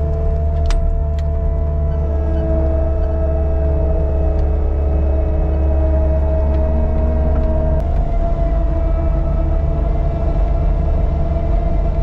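Caterpillar 299D2 compact track loader's diesel engine running steadily under load while pushing brush, with a steady high whine over the low drone. The engine note shifts slightly about eight seconds in.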